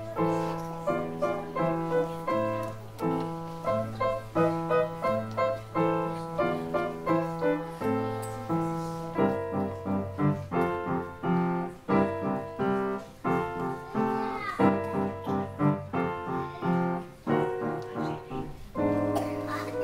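Solo upright piano playing a piece: a repeating two-note bass figure under a melody, moving into fuller, denser chords about halfway through.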